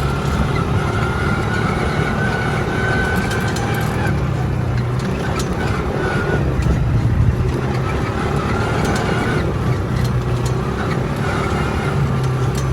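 ATV engine running as it is ridden along, its hum swelling and easing every few seconds.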